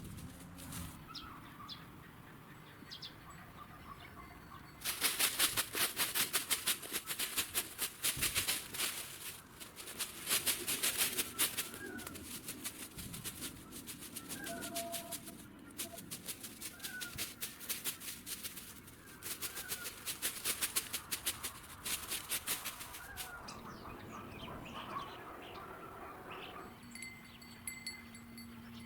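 Long runs of rapid fluttering or rattling, in several spells of a few seconds each, with short bird chirps between them.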